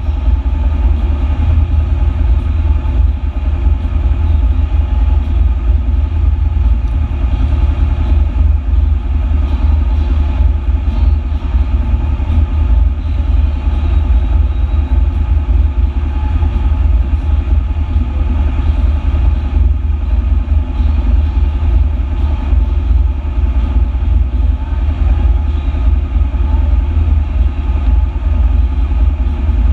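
A vehicle's engine idling steadily, a deep, even running sound with no change in speed.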